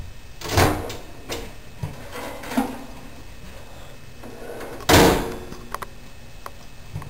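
Countertop microwave oven being handled: a few soft knocks and clatters, then the loudest event, a door shutting with a bang about five seconds in.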